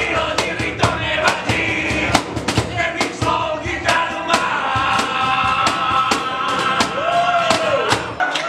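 Live singing to a strummed acoustic guitar, with the chords struck in a steady rhythm of about two to three strokes a second. The music cuts off just before the end.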